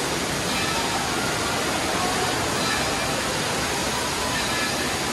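Steady rush of water pouring out of an enclosed tube water slide into its churning splash pool, with faint voices far off.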